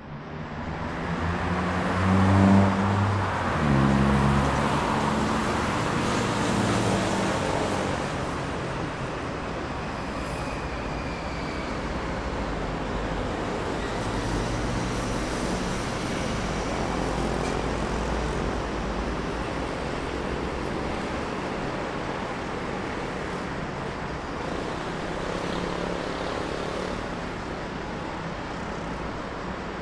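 Road traffic noise, with cars passing by over a continuous rumble of engines and tyres. A vehicle's engine is loudest about three seconds in as it passes close, and another engine comes up briefly about halfway through.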